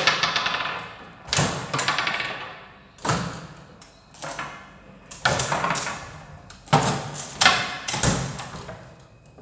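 Foosball table in play: about eight sharp knocks, each followed by a short fading rattle, as the ball is struck and the steel rods slide and clatter in their bearings and springs.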